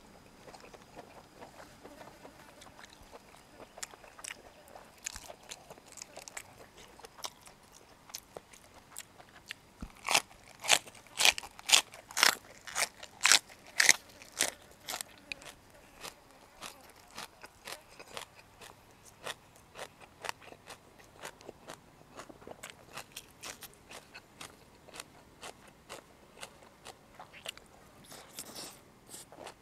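Close-miked chewing of crunchy boiled pork intestine and raw green vegetables. About ten seconds in comes a run of loud, crisp crunches lasting some five seconds, and around it softer, steady chewing clicks.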